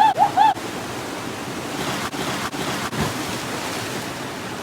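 Steady rushing of falling water, with two short chirps at the very start and a few faint clicks about two to three seconds in.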